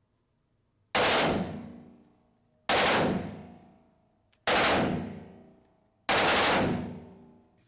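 Four short bursts of fully automatic machine-gun fire, evenly spaced about two seconds apart, each stopping abruptly and then ringing out in a tail that fades over about a second.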